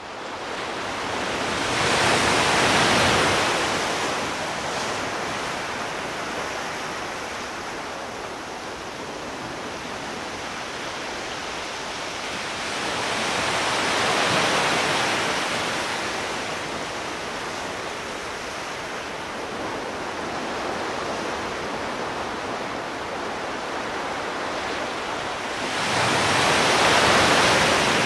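Sea surf on a sandy beach: waves washing in, swelling and easing three times.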